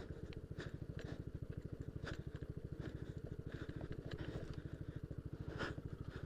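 Yamaha Aerox scooter's single-cylinder engine running with an even, rapid pulse, over scattered clicks and rattles from riding a rough, broken dirt road.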